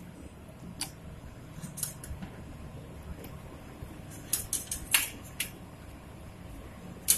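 Light clicks and taps as chunks of onion and capsicum are put by hand into a bowl of paneer marinade, with a cluster of clicks about four to five seconds in and a sharper one near the end, over a low steady hum.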